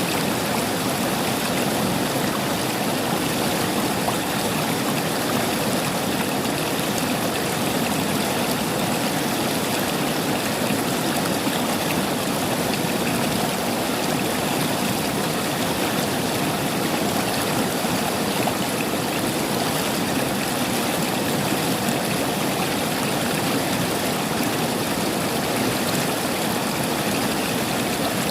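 River water flowing steadily over stones, a continuous rushing and gurgling without pause.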